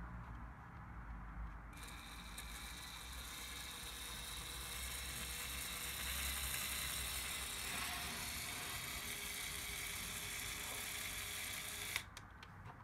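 Small LEGO Power Functions electric motor driving the plastic gears of a LEGO Technic chassis: a steady whir with a faint whine, starting about two seconds in and stopping suddenly with a click near the end.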